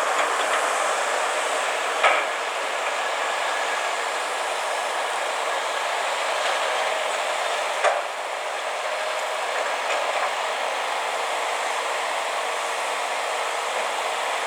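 Steady mechanical din of heavy machinery at work, with a sharp clank about two seconds in and another near eight seconds.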